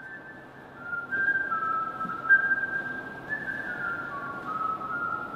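A person whistling a slow tune: a single pure tone stepping between held notes, each lasting about half a second to a second, drifting downward toward the end.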